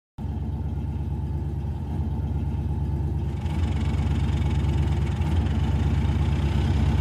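An engine idling: a steady low rumble with a fast, even pulse that cuts in abruptly out of silence and grows a little louder about three seconds in.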